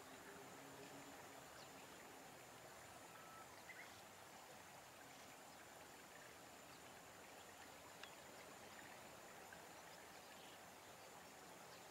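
Near silence: faint outdoor background hiss with a thin steady high tone, and a few faint short chirps a few seconds in.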